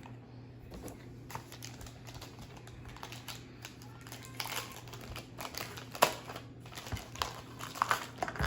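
A cardboard slime-kit box and its packaging being handled: scattered taps, clicks and crinkles, with a few louder knocks about six seconds in and near the end.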